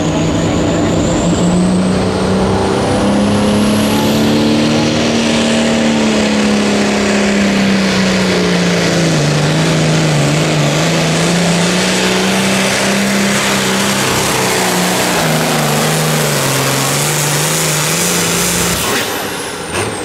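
Modified John Deere hot farm tractor's diesel engine at full throttle pulling a weight-transfer sled, with a high whine climbing over the first few seconds; the engine note wavers and sags twice as the sled's load builds. About nineteen seconds in the throttle is cut and a high whine falls away.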